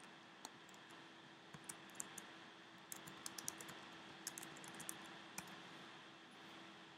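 Faint typing on a computer keyboard: a run of irregular key clicks over a steady hiss, stopping about five and a half seconds in.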